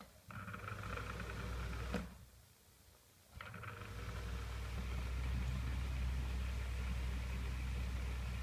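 Small JEE bathroom exhaust fan fitted with Prop-Top blades, its motor humming and the blades whirring steadily. The sound cuts out about two seconds in and picks up again a second or so later, then runs on steadily.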